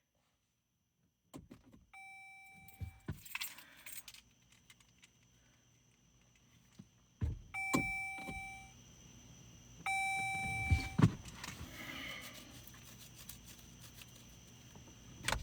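A car's electronic dashboard chime sounds three times as the keyless start is tried, among clicks and the rattle of keys; the engine does not start.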